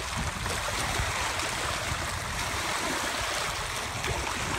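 Steady rushing of water, with irregular low rumbling underneath.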